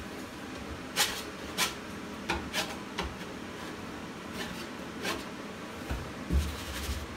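Metal putty knife scraping loose, torn paper off a drywall surface: a series of short, separate scrapes with pauses between, the longest near the end.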